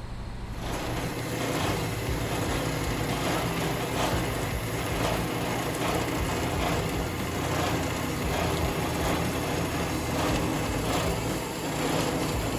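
Roll-In EF1459 gravity-feed band saw running, with a steady motor hum, as its blade is fed into and cuts through the clamped stock. The cutting noise comes in about half a second in and carries on steadily.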